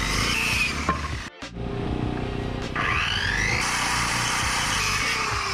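Background music over a power saw running and cutting wood, its whine rising, with a short break about a second and a half in.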